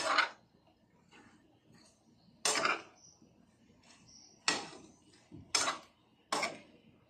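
Metal spoon scraping and knocking against a stone-coated nonstick frying pan while stirring shell-on shrimp, about five strokes a second or two apart.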